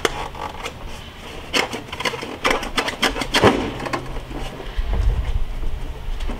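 A benchtop table saw being tipped and handled on a wooden-slat table: a string of knocks, clicks and scrapes as its styrofoam packing is worked out, with a low rumble near the end.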